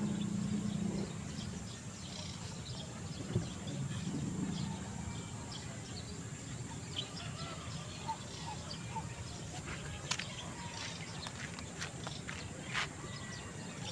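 Rural outdoor ambience: scattered bird chirps and short clicks over a steady hiss, with a low hum during the first few seconds.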